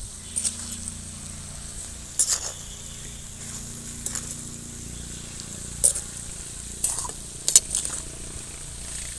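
Metal spatula stirring bamboo shoot pieces and dry spices through hot oil in a kadhai: a steady light sizzle with several sharp scrapes and knocks of the spatula against the pan.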